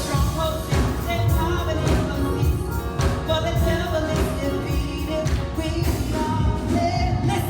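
Live church music with a steady drum beat under held chords and a melody line.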